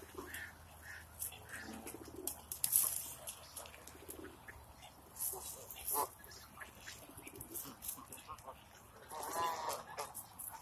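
A flock of Canada geese and ducks calling in short, scattered calls, with a longer call about nine seconds in, over many faint short high clicks.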